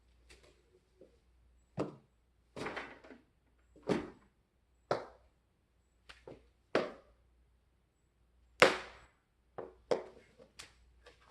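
A string of about a dozen short knocks and clicks at irregular intervals, with a sharper, louder knock about two-thirds of the way through.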